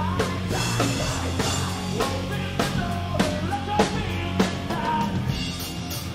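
Live rock band playing loud: electric guitars and bass holding low notes under a steady drum-kit beat, with the drums dropping back near the end.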